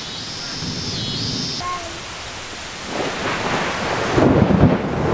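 Rain falling through a thunderstorm; about three seconds in a roll of thunder builds up, deep and rumbling, and is loudest near the end.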